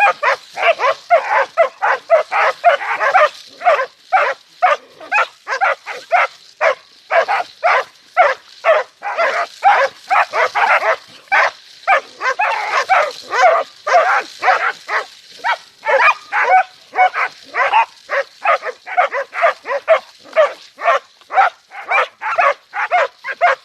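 Dog barking over and over, two or three barks a second without a break, as it confronts a porcupine.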